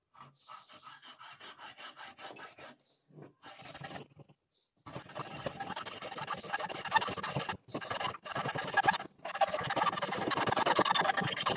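Hacksaw cutting through a carbon fiber bicycle fork steerer tube in quick back-and-forth strokes. The first strokes are lighter; after a short pause about four seconds in, the sawing turns steadier and louder, with a few brief stops.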